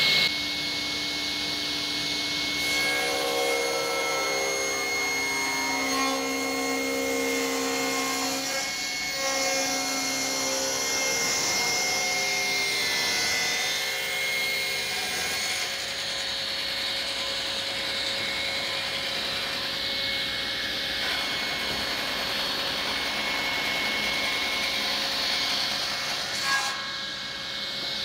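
Circular saw of a woodworking combination machine, fitted with a rip blade, running at full speed with a steady high whine. The blade rips along a thick beech plank, with lower tones that shift as the wood loads the blade.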